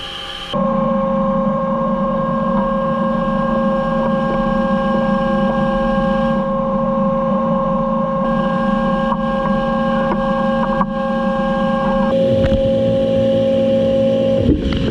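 A machine tool cutting metal runs with a steady high-pitched whine over a bed of noise. The whine starts suddenly about half a second in, and its tone shifts abruptly twice near the end.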